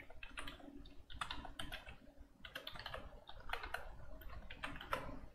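Typing on a computer keyboard: a run of quick, uneven keystrokes.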